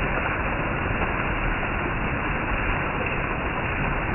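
Heavy rain falling steadily on leaves and a roof, an even, unbroken hiss.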